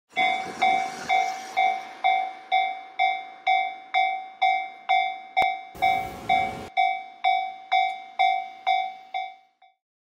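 Japanese railway level-crossing warning bell ringing its steady 'kan-kan' alarm, about two strikes a second, then stopping shortly before the end. A brief rush of noise comes about six seconds in.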